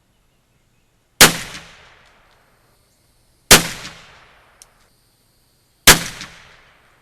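Three shots from a North American Arms .22-caliber percussion revolver, about two seconds apart, each cracking sharply and ringing out for about a second, with a faint click between the second and third.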